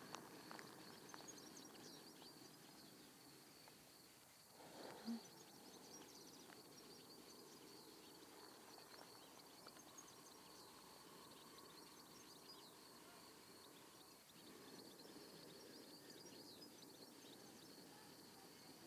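Near silence: faint background room tone, with one brief soft sound about five seconds in.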